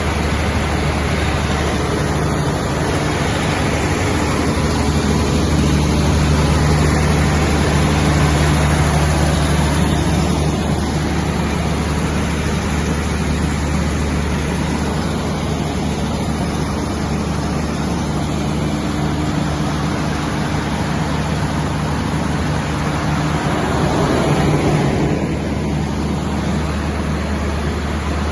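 200 kVA FG Wilson diesel generator set running steadily, a constant low engine hum with a brief swell in level near the end.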